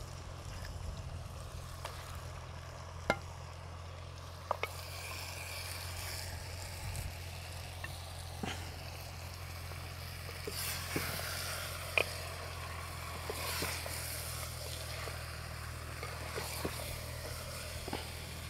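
Raw mutton pieces sizzling as they go into a clay pot of frying tomatoes and onions, with a wooden spoon stirring and knocking against the clay now and then; the sizzle thickens a few seconds in.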